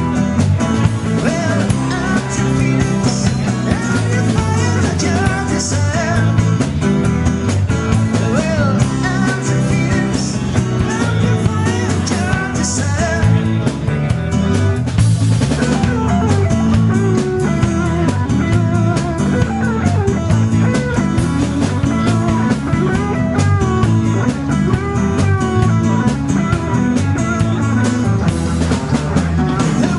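Live band playing a rock song on guitars, electric bass and a drum kit, with cymbal crashes every few seconds.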